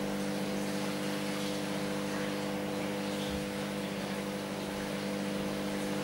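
A steady hum of several constant tones over an even hiss, unchanging throughout.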